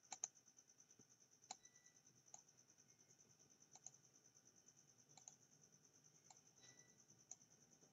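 Near silence with a handful of faint computer mouse clicks at irregular intervals, over a steady faint high-pitched whine.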